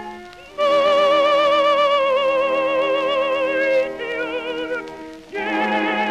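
Background music: a slow melody in long, wavering notes with strong vibrato, swelling in about half a second in and again near the end after a softer passage.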